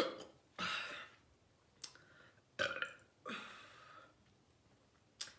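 A girl burping repeatedly, four burps in a row, brought on by drinking two 12-ounce cans of soda. A short sharp click comes near the end.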